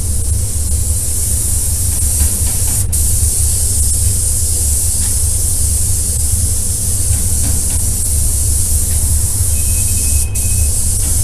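Compressed-air spray gun hissing steadily as quartz glass coating is sprayed onto the car, over a steady low rumble. Two faint clicks come about three seconds in and again near the end.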